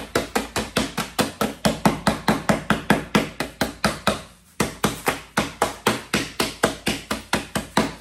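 Wooden spoon beating a plastic bag of Oreo cookies against a table to crush them into crumbs: rapid, even strikes about five a second, with a short break about four seconds in.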